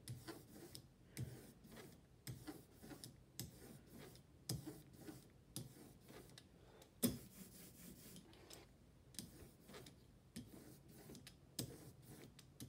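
Hand ink roller (brayer) rolling tacky printing ink over a polystyrene engraving block: a faint rubbing hiss with a soft click about once a second as each pass starts and ends. The fine hiss is the sign of a thin, even layer of ink.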